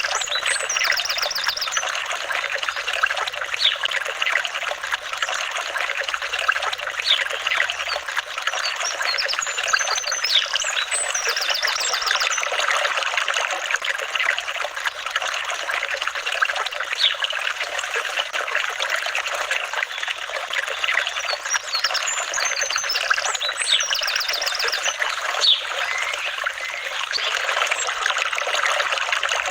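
Flowing water trickling and babbling steadily, with short high chirps now and then.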